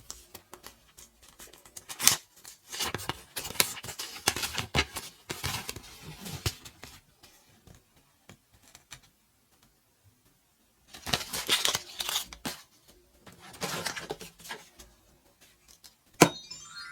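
Candy and Kinder Joy wrappers being torn open and crinkled by hand, in several bursts of rustling with pauses between. A sharp click comes near the end.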